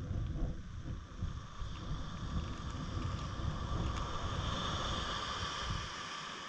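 Wind buffeting the microphone, with a steady higher-pitched hum that grows louder in the second half.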